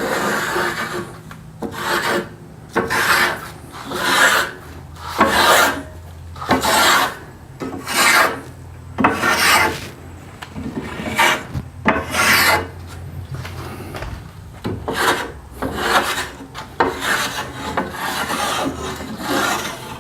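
Hand plane strokes shaving wood from a wooden paddle shaft: a steady series of rasping cuts, roughly one every second or so, with short pauses between strokes.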